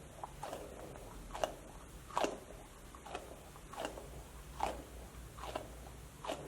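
Meat grinder crushing a rubbery light-up puffer ball: a regular run of short squeaky crunches, about one every three-quarters of a second.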